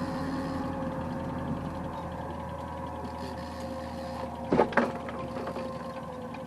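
A small boat's outboard motor running and then cut off about two seconds in, its low rumble stopping while a steady hum carries on. Two sharp knocks come about four and a half seconds in, the loudest sounds here.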